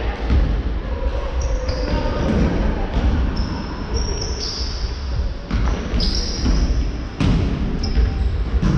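Indoor basketball game on a wooden gym floor: a basketball bouncing, sneakers squeaking in short high chirps, and a couple of sharp thuds about five and a half and seven seconds in, echoing in the large hall.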